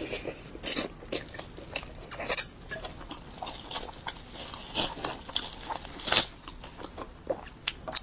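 Close-miked eating: chewing and biting with wet mouth sounds and irregular sharp clicks.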